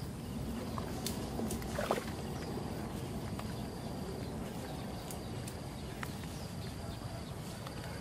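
Wind rumbling on the microphone outdoors, with scattered snaps and rustles as leafy bush branches are pulled and broken by hand.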